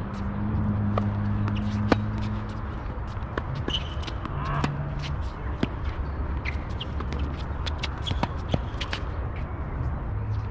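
Tennis ball bouncing on an outdoor hard court and struck by rackets during a point, with the players' shoes shuffling and scuffing on the court between the sharp hits.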